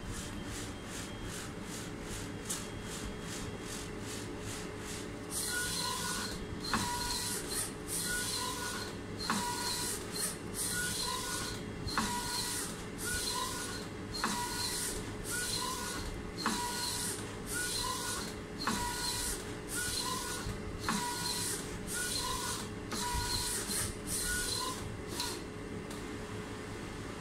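HP DesignJet 510 inkjet plotter printing: the print-head carriage shuttles back and forth across the paper in a steady rhythm of short whirring passes. The passes get louder about five seconds in and stop shortly before the end.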